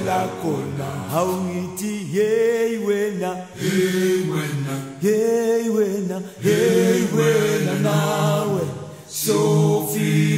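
A group of voices singing a chant in harmony, with little instrumental backing. It comes in phrases of one to two seconds separated by short breaks.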